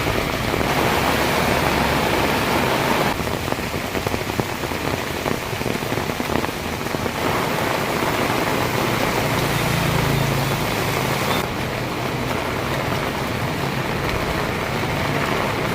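Heavy rain pouring steadily onto surfaces. Its hiss changes character abruptly a few times, at about 1, 3, 7 and 11 seconds in.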